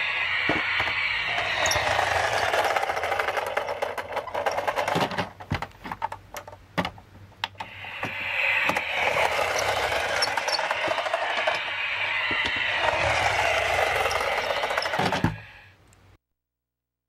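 Toy N700 series Shinkansen's built-in running sound effect played through its small speaker: a recorded train running noise with a wavering whine. It fades about five seconds in, leaving a few clicks, comes back about three seconds later, and cuts off suddenly near the end.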